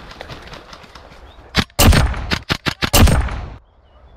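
WE MP7 gas blowback airsoft rifle firing a quick string of shots: a single shot, a short burst, four separate shots and another burst, all within about two seconds.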